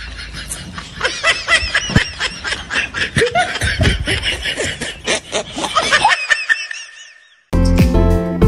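Giggling and snickering laughter, many quick high-pitched laughs in a row, fading out about seven seconds in. After a brief silence, music with a steady beat starts near the end.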